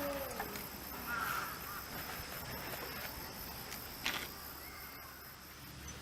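The end of a long, drawn-out animal call that falls in pitch and dies away in the first half second, then a steady outdoor background with a thin high insect-like trill and a faint click about four seconds in.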